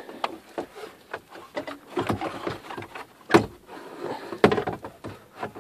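Rustling handling noise with several sharp plastic knocks and clicks as a replacement radio unit is worked into a 2002 Ford Taurus dashboard. The two loudest knocks come in the second half.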